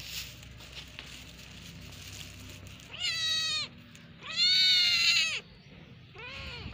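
Kitten meowing three times; the middle meow is the longest and loudest, and the last is short.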